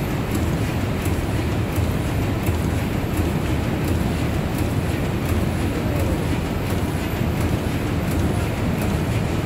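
Steady rumble of the Woudagemaal's steam pumping engines running in the engine hall, with a faint regular ticking about twice a second.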